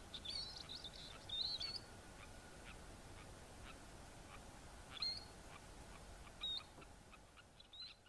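Three-banded plovers giving short, high chirping calls: a quick run of calls near the start, another about a second and a half in, then single calls at about five and six and a half seconds, with faint ticks between.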